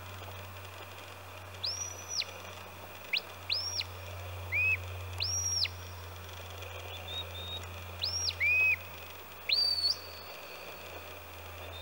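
A shepherd's whistle sounding about eight short, high commands to a working sheepdog. Each note rises sharply, holds level and drops, and the last one, near the end, is held longer.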